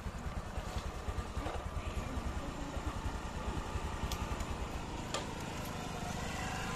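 Motorcycle engine idling close by, a steady low putter.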